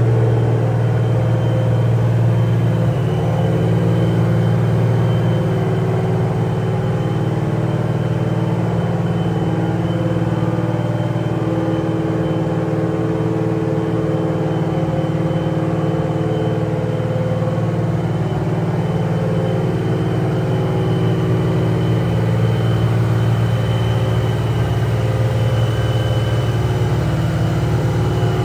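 Supercharged V8 car with a 2.9 L Whipple supercharger and long-tube headers, its engine running steadily at idle with no revving. A faint steady high whine sits above the engine note.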